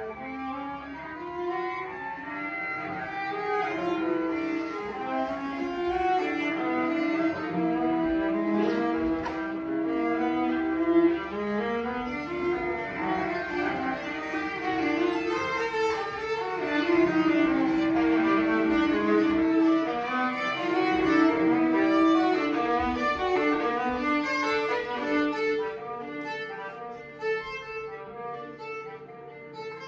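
Viola and cello improvising together, quick bowed notes mixed with long held tones.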